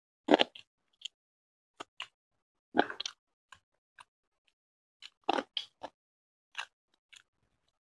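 Eating sounds of a man eating rice and chicken curry with his hand: short, separate bursts of chewing and of fingers mixing rice on the plate, with silence between. The loudest come about a third of a second, three seconds and five and a half seconds in.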